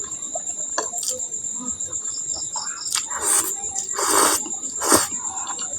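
Close-up eating noises from a mukbang: two short noisy slurps or bites about three and four seconds in, and a sharp click near the end. Under them runs a steady high, pulsing insect trill, like crickets.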